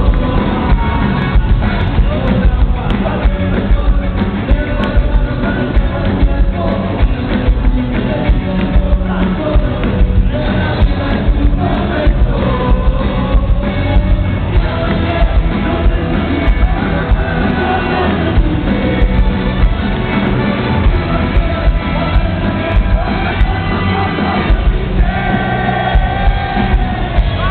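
Rock band playing live with saxophone and trumpet, with a sung melody line, heard loud from within the audience with some crowd shouts.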